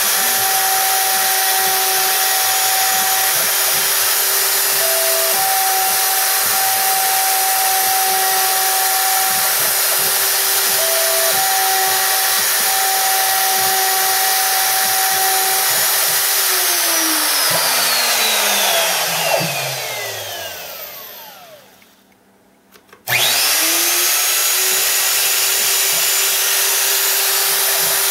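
Bosch 1617 router spindle spinning at about 25,000 RPM with a quarter-inch carbide upcut bit, milling RenShape in a homemade CNC router: a steady high whine with cutting noise. About 17 seconds in the router winds down, its pitch falling to a stop, then about a second later spins back up quickly to full speed.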